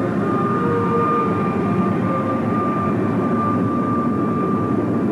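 Jet engines running steadily: a dense rushing roar with a constant high-pitched whine on top. The source is the Avro Arrow's twin Pratt & Whitney J75 turbojets.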